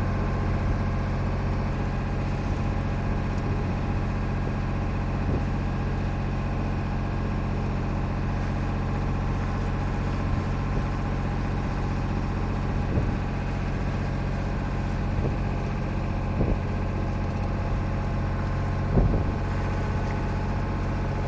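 Sailboat's engine running steadily while motoring, a constant low hum with no change in speed.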